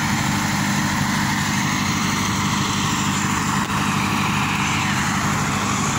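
A large engine idling steadily, with an even low hum that does not change.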